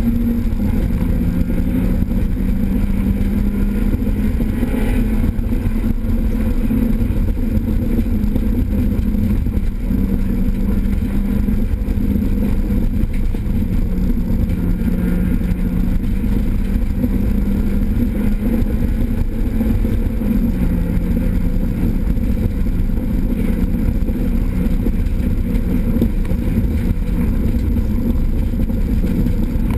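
Renault Clio 16S rally car's engine running hard under load, heard from inside the cabin with loud road and mechanical noise. The engine note holds fairly steady, with a few small steps in pitch.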